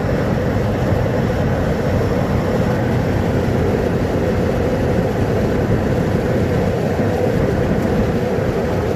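Steady low rumbling noise with a faint steady hum over it and no distinct knocks or clicks.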